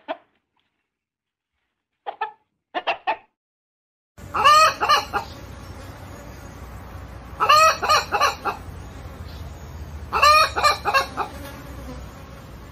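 Domestic hen calling: a few short clucks, then from about four seconds in a loud call of several quick notes, about a second long, repeated roughly every three seconds.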